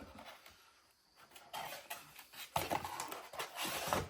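Rustling, scraping and light clicks of a newly unpacked phone clamp and its packaging being handled, louder and busier through the second half.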